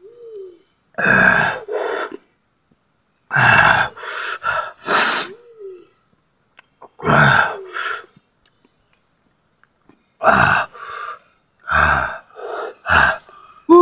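A man gasping and blowing out hard breaths through an open mouth, about a dozen loud bursts in short groups of two or three, some with a voiced 'haa'. It is his reaction to the burn of a mouthful of raw chillies.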